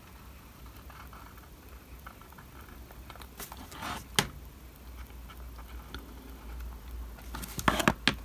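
Light handling sounds of a small card-and-plasticard model building and a plastic glue bottle: faint rustling with a few sharp clicks, the loudest about four seconds in. Near the end there are several knocks as the model is set down on a cutting mat.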